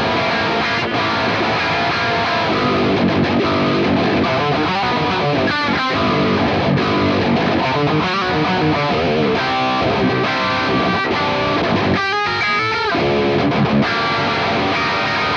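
Distorted electric guitar riffing, played through the Nalex Ninja and Nalex Crunchman amp simulators blended together, with quick runs of notes midway and near the end.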